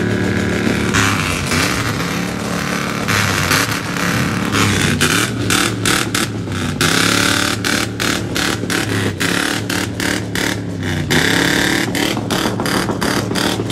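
Ford modular V8 revved hard and held on the rev limiter, the limiter cutting in rapidly over and over; the revs drop away and climb back up a few times.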